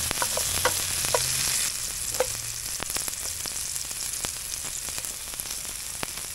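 Mushroom slices and garlic sizzling in a stainless steel sauté pan on medium-low heat while being stirred with a wooden spoon. The sizzle is loudest in the first couple of seconds, with a few short squeaks of the spoon against the pan, then settles to a steady hiss with small scattered pops.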